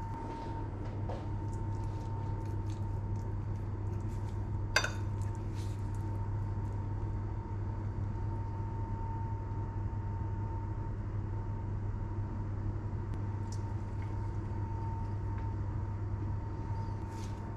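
A steady low hum with a thin high tone running over it, and faint clicks of metal utensils against a ceramic plate. One sharper clink comes about five seconds in.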